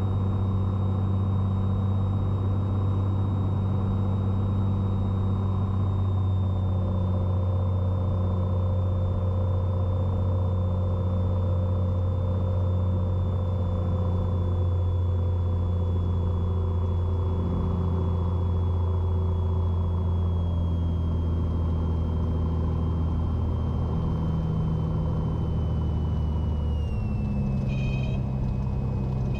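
Cessna 182T's engine and propeller heard inside the cabin, a steady low drone at reduced power around landing. The drone shifts in pitch near the end.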